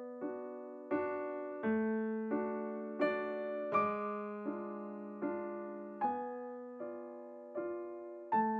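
Background piano music: a slow, evenly paced melody, with a note or chord struck about every 0.7 seconds and each one ringing and fading before the next.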